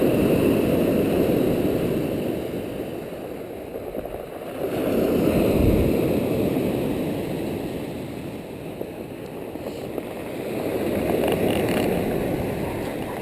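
Sea waves washing onto the shore: a rush of water that swells and fades three times, about every five to six seconds.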